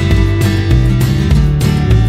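Background music: a guitar track with a steady beat.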